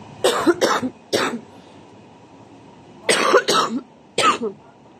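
A person coughing close to the microphone, in two fits of about three sharp coughs each, a couple of seconds apart.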